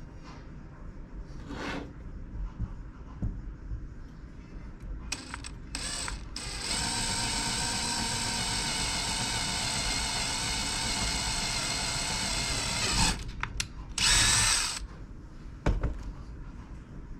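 Cordless drill boring test holes in a test block for pen tips: a few short bursts of the motor, then a steady run of about six seconds, then short blips and a brief, louder burst near the end.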